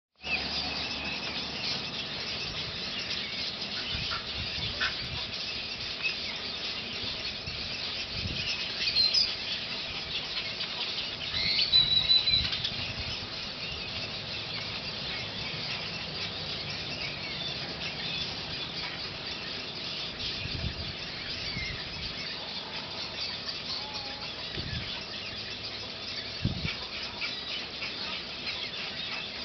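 Busy bird ambience: a constant chatter of many short high calls, with louder squealing calls about 9 and 12 seconds in.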